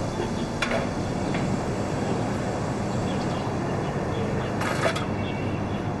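Steady urban outdoor background hum, with a short click about half a second in and a brief rustle near the end.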